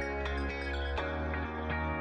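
Background music: soft instrumental with plucked guitar-like notes over sustained bass tones.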